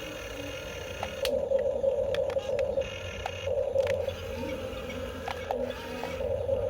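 Small electric gear motors of a radio-controlled construction model whining in short runs, starting and stopping as the controls are worked, with scattered small clicks and scrapes.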